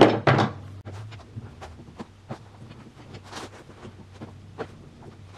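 Handling noise of a wooden mast set in its mast hole: two sharp knocks right at the start, then scattered light clicks and a short scrape about three and a half seconds in.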